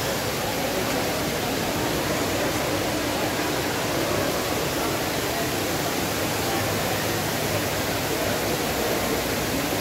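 Steady rushing noise of a large shopping-mall hall, with faint indistinct crowd murmur.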